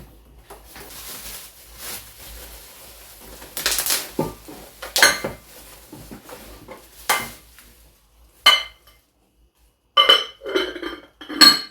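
Serving dishes being unpacked and handled: soft rustling, then several separate knocks and clinks, and a quick run of ringing clinks near the end as the dishes touch one another.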